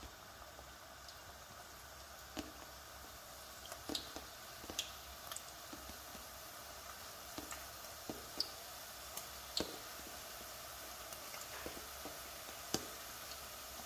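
Small pieces of namak pare dough deep-frying in hot oil: a faint steady sizzle with scattered sharp pops and crackles.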